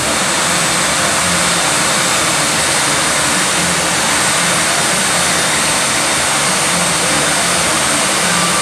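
Jet dragster's jet engine running steadily at the starting line before a run: a loud, unbroken rush with a high steady whine.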